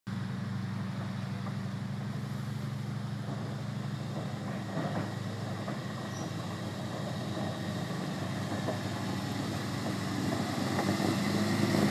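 Engine of a reproduction WWII Krupp L2H143 truck running steadily as the truck drives closer, growing louder toward the end.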